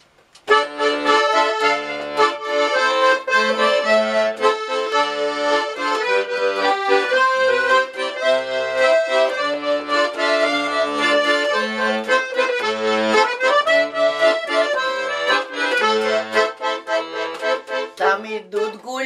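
Russian garmon (button accordion) playing a folk-song introduction solo: a melody in the right hand over a regular bass-and-chord pulse in the left, starting about half a second in.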